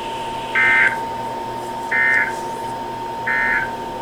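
Three short bursts of EAS SAME data tones from a NOAA Weather Radio broadcast, about 1.4 s apart. This is the end-of-message code that closes a warning. They sound over the radio's steady hiss, with a faint steady high tone underneath.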